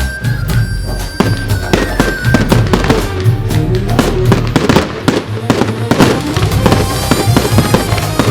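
Fireworks going off in quick succession, many sharp bangs and crackles, over loud music with a steady bass.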